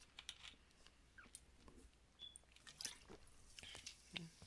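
Near silence between narrated lines: faint scattered mouth clicks and lip smacks close to the microphone over a low steady hum.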